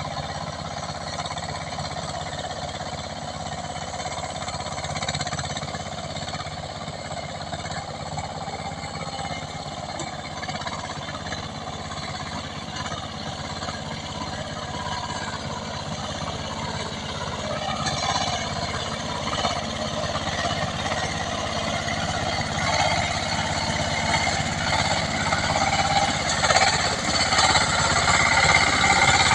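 Single-cylinder diesel engine of a paddy boat tractor running steadily with a rapid even beat, growing louder over the last ten seconds or so as it comes closer, with muddy water churned by its paddle wheels near the end.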